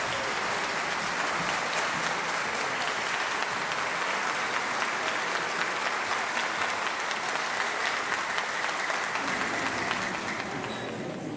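Audience applauding, a steady clatter of many hands clapping that thins and dies away near the end.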